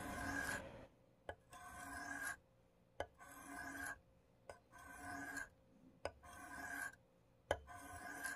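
Steel knife blade drawn across an AccuSharp tri-stone in single freehand sharpening strokes: about six short scrapes, one every second and a half. Each starts with a light click as the edge is set down on the stone.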